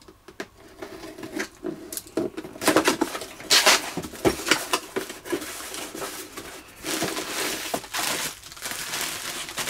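Packaging being opened by hand: a knife slitting tape on a small cardboard box and the cardboard flaps being pulled and scraped open. From about seven seconds in comes a continuous crinkling of plastic bubble wrap as a wrapped radio transmitter is lifted out.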